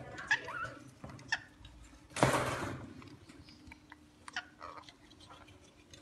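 Rainbow lorikeets in a cage giving small chirps among scattered clicks, with one loud, harsh, noisy burst of about half a second just after two seconds in.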